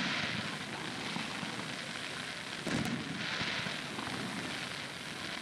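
Fireworks crackling overhead: a dense crackle from many small exploding stars, with one dull boom about two and a half seconds in.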